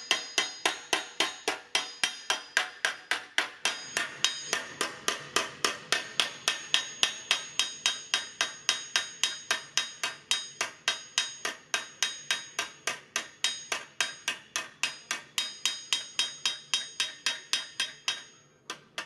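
A hand hammer striking sheet metal over a steel anvil block, a steady run of about four blows a second with a metallic ring, as the panel is shaped to its curve. The blows break off briefly near the end.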